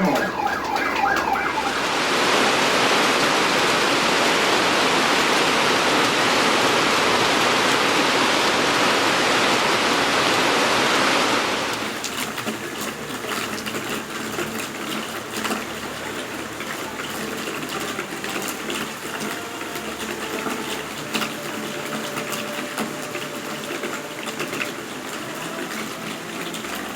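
Heavy rain on a street: a loud, even hiss of downpour that starts about two seconds in and drops suddenly near the middle to a softer, steady rain.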